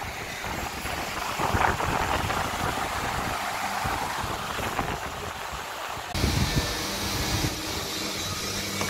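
Rumbling, rustling noise on the microphone. About six seconds in, a steady machine hum starts and runs on under a higher hiss.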